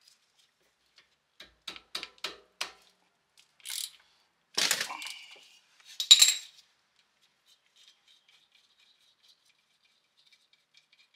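Hand tools clicking and clinking against metal as a brake caliper guide pin bolt is undone: a quick run of light clicks, then two louder metallic clinks about halfway through, the second with a short ring.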